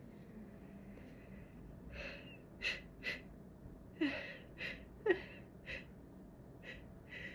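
A person's short, sharp gasping in-breaths come in an irregular string starting about two seconds in, a few with a brief falling voiced catch. These are the hitching breaths of a build-up to a sneeze.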